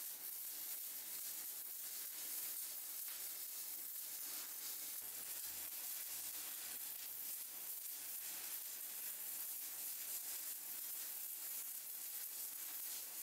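Stick-welding arc from a Miller CST 280 inverter welder running at about 220 amps DC, heard as a faint, even crackling sizzle.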